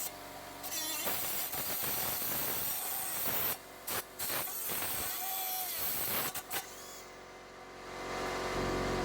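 Small handheld rotary grinding tool running at high speed and working against a workpiece, with knocks and scrapes. It cuts out briefly twice about three and a half seconds in, eases off about seven seconds in, and runs louder again near the end.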